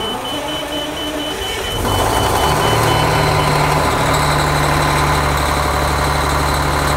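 Detroit Diesel engine of a 1997 Sutphen fire truck started with the push-button starter, catching about two seconds in and then running steadily. A quick repeating high beep in the cab sounds alongside for the first few seconds.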